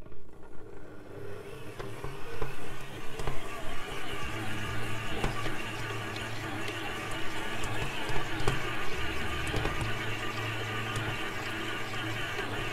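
Electric stand mixer switched on and running steadily, its dough hook kneading bread dough in a steel bowl: a constant motor hum with scattered light knocks.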